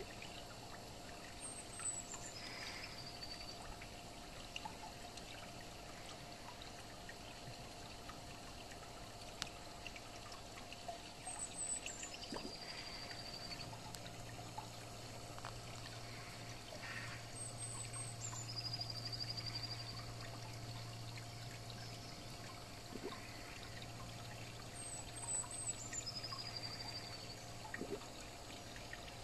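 Steady trickle of water in a garden pond. A small bird's song, a short falling trill, comes in four times. A faint low hum rises in the middle.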